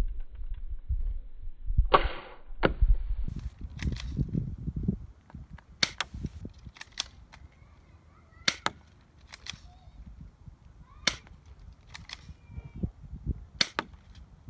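Airsoft guns firing single shots: about seven sharp pops, spaced one to three seconds apart.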